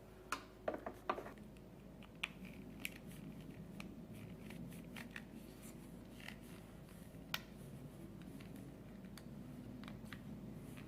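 Hand tool clicking and scraping against hard plastic while picking broken plastic out of a hole in a coffee maker part: a quick run of sharp clicks about half a second in, then occasional single ticks.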